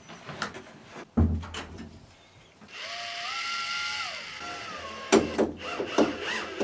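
Power drill running for about two seconds, its whine rising in pitch, holding, then falling as it slows, with clicks and knocks of handling before and after.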